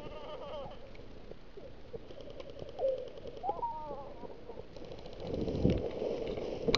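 Tall dry meadow grass rustling and swishing against a person pushing through it on foot, rising in loudness about five seconds in.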